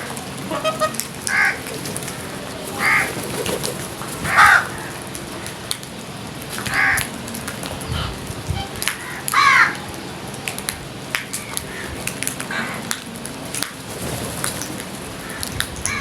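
Crows cawing, single caws about every two seconds, five or so in all, with scattered light clicks between them.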